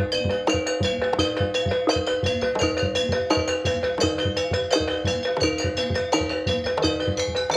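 Javanese gamelan music accompanying a masked dance: a rapid, steady beat of drum strokes and struck metal keys, with one note held unbroken underneath.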